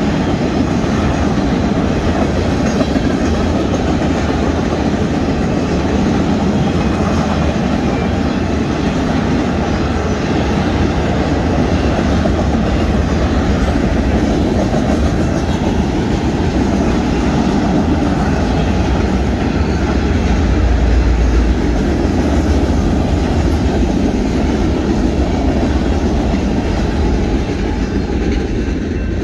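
Union Pacific mixed freight train's cars rolling past, a loud steady noise of steel wheels on the rails that eases a little near the end as the last cars go by.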